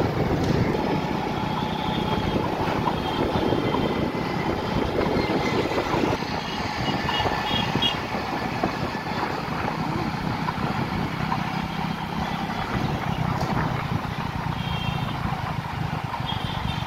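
Steady engine and road noise of a vehicle driving through city traffic, with a few faint short high beeps in the background.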